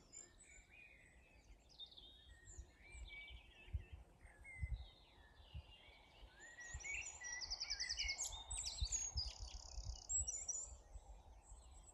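Several songbirds singing at once: a chorus of chirps, whistles and fast trills, busier in the second half. An uneven low rumble sits beneath it.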